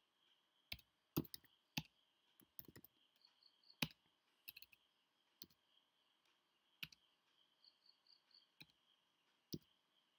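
Faint, irregular keystrokes on a computer keyboard as code is typed, about a dozen clicks spaced unevenly, over a faint steady high-pitched whine.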